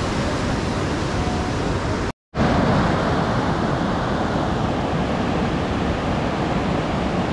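Steady rush of a fast mountain river running over boulders in white water. The sound cuts out completely for a moment about two seconds in, then the rushing water comes back slightly louder.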